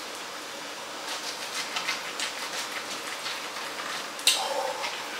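Soft, steady rustling of a paper towel wrapped around a stick of butter being rubbed along an ear of corn, with a sharp click about four seconds in.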